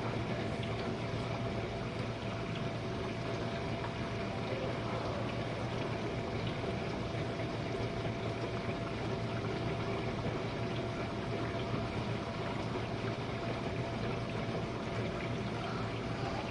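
Jenn-Air dishwasher running a wash cycle: the steady hum of its wash pump motor under the even rush of water spraying and sloshing inside the tub.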